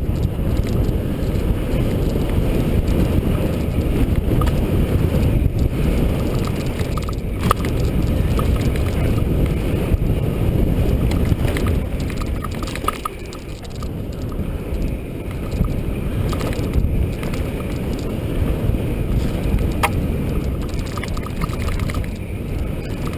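Mountain bike riding down a dirt trail: a steady rumble of wind and tyres on the camera microphone, with scattered rattles and clicks from the bike.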